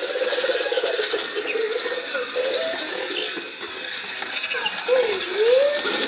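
Remote-control BB-8 toy droid rolling across a hardwood floor, its drive motor and gears whirring with a light rattle. The whine wavers in pitch and swoops up and down several times near the end.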